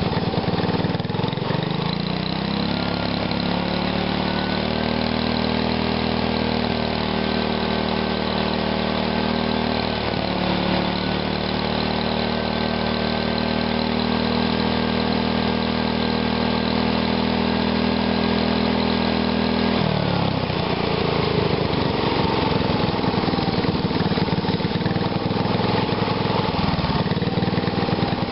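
Small engine running on a GEET fuel reactor. It revs up in two steps in the first five seconds, holds at high speed with a brief dip about ten seconds in, then drops back toward idle about twenty seconds in.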